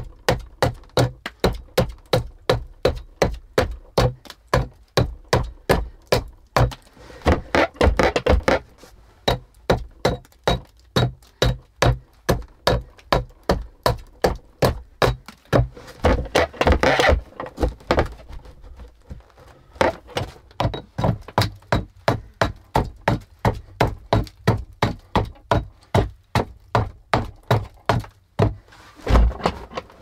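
Hand axe chopping into the wooden door frame, about two to three sharp blows a second, with two busier stretches of quicker blows.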